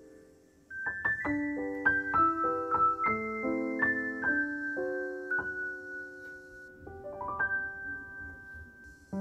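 Background piano music: a slow melody of struck notes that ring out and fade. A held chord dies away almost to nothing before the notes start again just under a second in.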